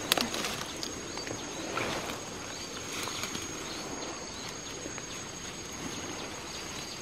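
Rainforest ambience: a steady high-pitched insect drone with short chirps repeating over it, and a sharp click right at the start.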